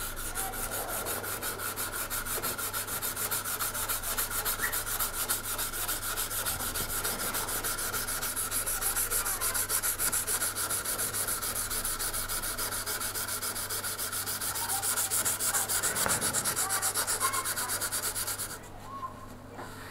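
Steel kitchen-knife blade being sanded by hand with 240-grit sandpaper and diamond paste, in fast, even back-and-forth strokes that stop about a second and a half before the end.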